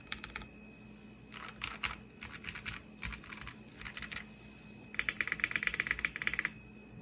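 Mechanical keyboard typing on a Space65 R3 with an aluminium plate, no foam, lubed and filmed Cherry Hyperglide black linear switches and GMK keycaps. The keystrokes come in short bursts of rapid clicks, ending in a longer, faster and louder run near the end.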